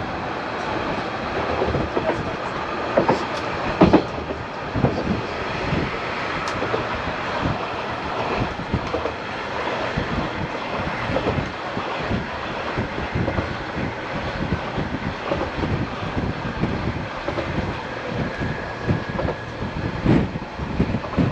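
Bernese Oberland Railway narrow-gauge train running along the track: a steady wheel-and-rail rumble broken by irregular clacks and knocks from the wheels, with a faint high whine now and then.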